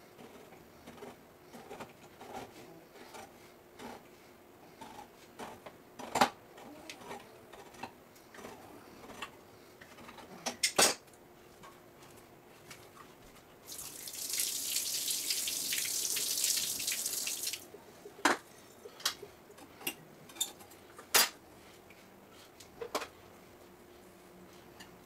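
Food preparation at a kitchen counter: scattered clicks and a few sharp knocks of utensils against a cutting board and a metal can, with a rush of running water lasting about four seconds midway.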